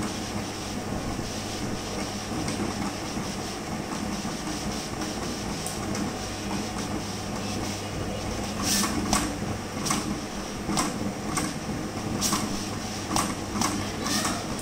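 Wide-format plotter running with a steady mechanical hum as the printed sticker sheet feeds through. About halfway through, sharp clicks start and come roughly once or twice a second.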